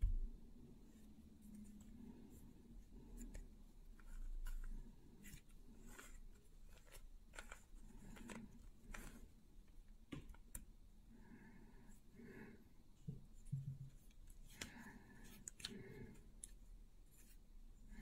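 Faint plastic clicks and clacks of a 3×3 Rubik's Cube's layers being twisted by hand, in irregular runs of quick turns.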